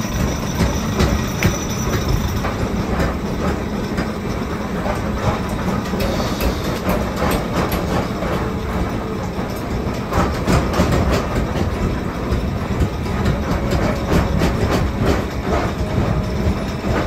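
Steady mechanical din of running workshop machinery: a constant low rumble with dense, irregular metallic clattering.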